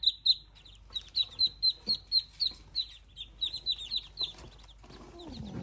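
Chicks peeping: a steady run of short, high, falling peeps, about three or four a second. A person's voice begins near the end.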